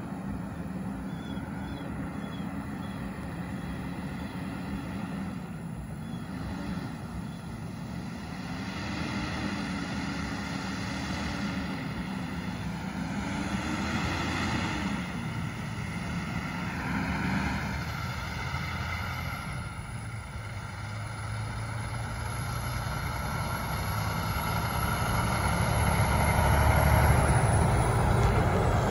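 Diesel engine of an International LT tractor-trailer approaching, its note rising and dropping several times as it pulls up through the gears, then growing steadily louder with tyre noise as the truck draws close near the end.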